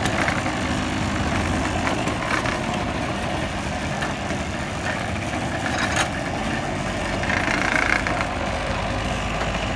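Kawasaki TH48 two-stroke engine of a walk-behind grass cutter and mulcher running steadily, with a sharp click about six seconds in.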